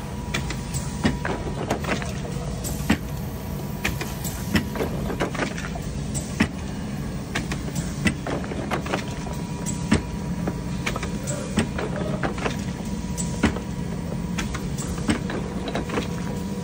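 Factory machinery running with a steady low hum, broken by irregular sharp clicks and clacks.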